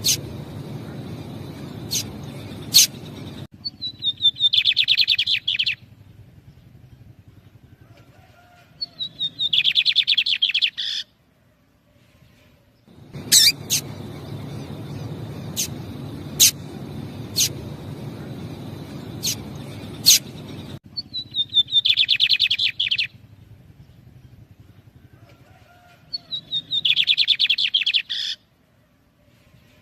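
A pair of lined seedeaters (bigodinhos): sharp single call notes, the female calling, alternate with the male's answering song. The song comes as four quick trilled phrases of about two seconds each, falling in pitch.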